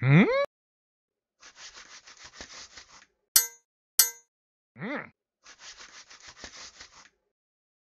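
Cartoon sound effects for an animated Viking: a loud, short rising cry of surprise, a quick patter, two sharp metallic clangs about half a second apart, a brief rise-and-fall vocal sound, then another quick patter.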